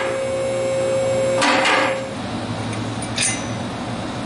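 Workshop tool and metal-handling noise: two short bursts of clattering, about a second and a half apart, and a single click near the end, over a steady hum.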